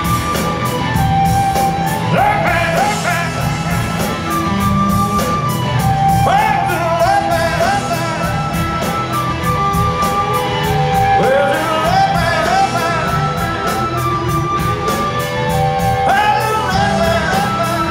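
Live rock band playing in a large arena, with sung vocal phrases coming in about two, six, eleven and sixteen seconds in over drums and held notes.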